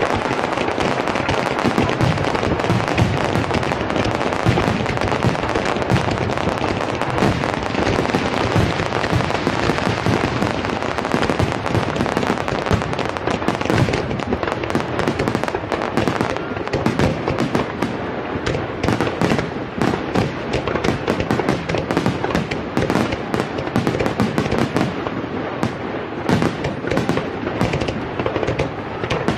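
Finale barrage of aerial fireworks heard from close by, almost beneath the bursts: a dense, continuous run of shell bursts and crackling. The separate bangs and cracks stand out more sharply over the second half.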